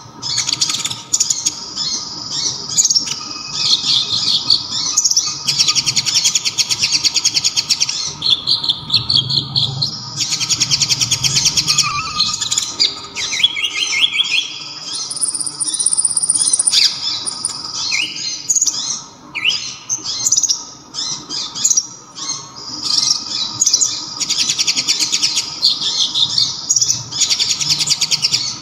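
A kolibri ninja (konin) sunbird singing loud, rapid, high-pitched trills and sharp chirps in runs of a few seconds with short breaks between them. Its song is filled with copied kapas tembak phrases.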